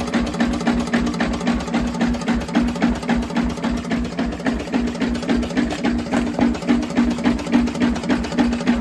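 R.A. Lister diesel engine driving a generator, running steadily with an even, rhythmic beat.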